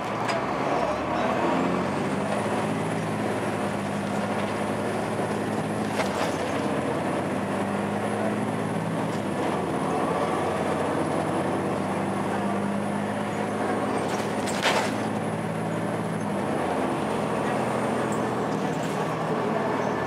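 Cummins ISC straight-six diesel of a 2002 Blue Bird CS transit bus, driving through its Allison automatic transmission, heard from inside the bus: the engine note rises as the bus pulls away, then runs steady under way. A thin high whine runs through most of it, and there is a knock about six seconds in and a sharper one about fifteen seconds in.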